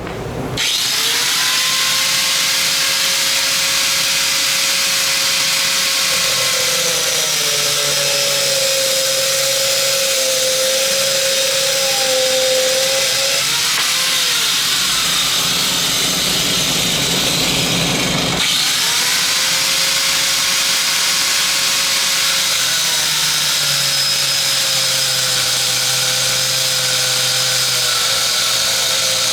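Angle grinder cutting through the shifter lever to shorten it. It spins up about a second in, its whine sagging in pitch under load. It stops briefly about two-thirds of the way through, then starts again and keeps cutting.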